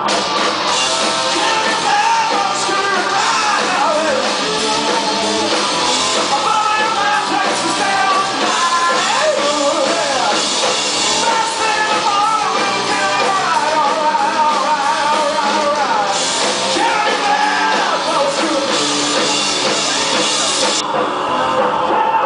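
Live rock band playing loud, with an electric guitar lead line bending and sliding between notes over the band.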